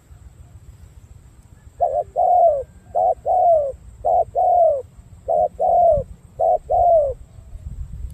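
Spotted dove cooing: five two-part coos in about five seconds, each a short note followed by a longer, falling note.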